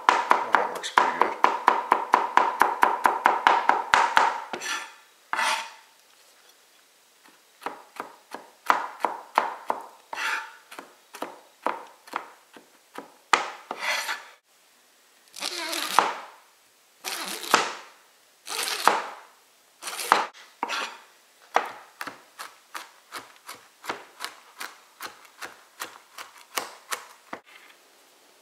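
A large kitchen knife rapidly chopping cauliflower into tiny pieces on a plastic cutting board. Quick runs of chops, about five a second, are broken by pauses and a few longer rasping strokes of the blade across the board.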